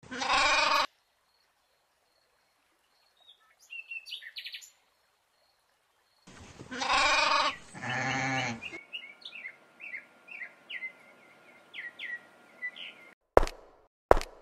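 Recorded sheep and goat bleating: one short bleat at the start and a longer, wavering one about six seconds in, with small birds chirping in between and after. Near the end comes a quick run of sharp knocks, about two a second.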